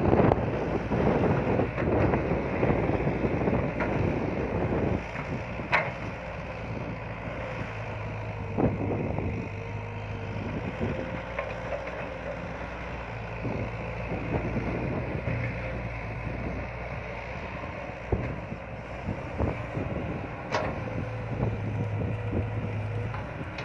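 Caterpillar hydraulic excavator's diesel engine running while it digs soil, its low drone swelling and easing several times as the hydraulics take load. Two sharp clanks stand out, and wind buffets the microphone in the first few seconds.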